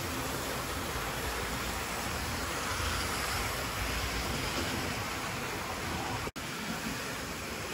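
Model trains running past on the track: a steady rumbling hiss of wheels and motors, the low rumble strongest in the middle. The sound cuts out for an instant about six seconds in.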